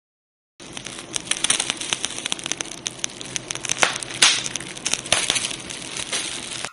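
Crackling fire: a steady hiss dotted with many sharp, irregular pops and snaps, starting about half a second in.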